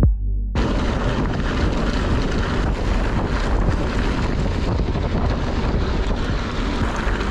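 Wind buffeting the microphone of a camera riding along on a mountain bike, an even rushing noise with a low rumble, after a short piece of music cuts off about half a second in.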